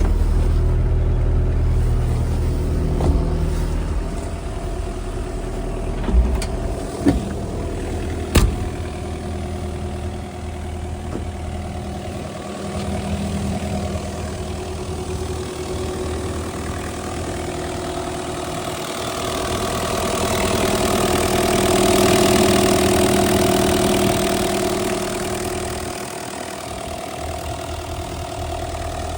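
Kubota KX027-4 mini excavator's three-cylinder diesel engine running steadily, with a few sharp knocks about six to eight seconds in. The engine grows louder around twenty seconds in, then settles back.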